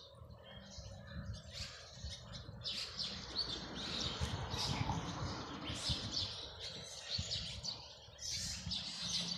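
Small birds chirping, many short calls repeated throughout, with a low rumble underneath.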